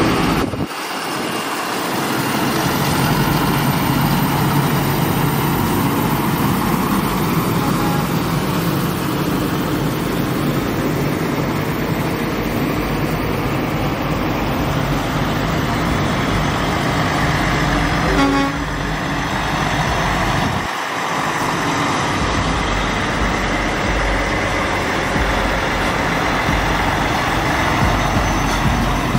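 Diesel semi trucks driving slowly past one after another, with a steady engine drone and tyre noise on the road.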